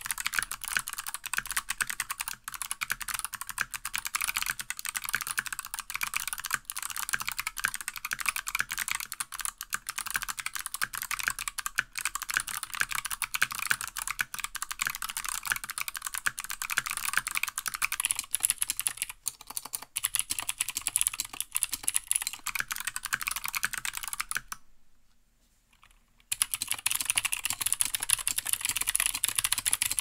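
Fast typing on clicky mechanical keyboards: stock, unlubed Cherry MX Blue switches on an Anne Pro, then pre-tooled Kailh Box White switches on a GMMK TKL. The typing stops for about a second and a half a few seconds before the end, then starts again on the Cherry MX Blues at a faster pace.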